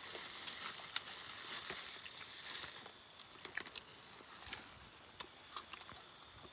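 Faint rustling and scattered light clicks of food being handled over banana leaves, a little louder in the first few seconds, with a faint steady high-pitched whine underneath.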